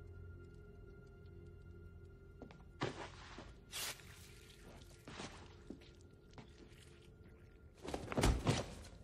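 Film sound effects: a low sustained drone, then a few sharp, rasping strokes about three and four seconds in as a knife is drawn across a throat. A heavy thud near the end as a body falls to the floor is the loudest sound.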